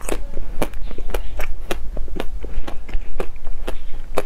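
A person chewing food close to a clip-on microphone: sharp, irregular wet mouth clicks about four times a second, over a steady low hum.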